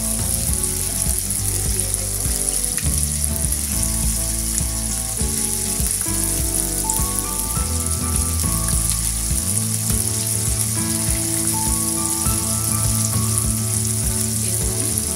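Battered chicken pieces deep-frying in hot oil on high heat, a steady sizzle, with background music playing underneath.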